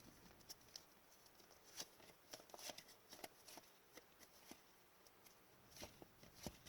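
Faint, scattered ticks and rustles of trading cards being handled, over near silence.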